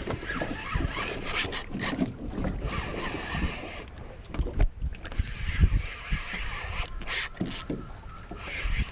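Wind buffeting the microphone and water slapping against a small fishing boat, with irregular low thumps and two brief rushing gusts, about one and a half seconds in and near the end.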